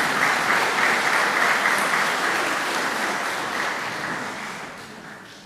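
Audience applauding, the clapping dying away gradually over the last couple of seconds.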